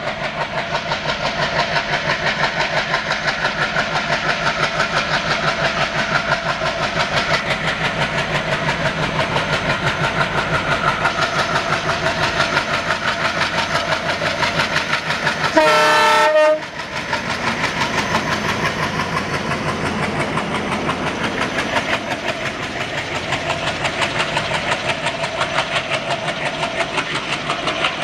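WDG 3A diesel-electric locomotive, with an ALCO-design 16-cylinder engine, running under power as it approaches and passes with a fast, regular throb. About halfway through it gives one horn blast lasting about a second, the loudest sound here. Then its passenger coaches roll past.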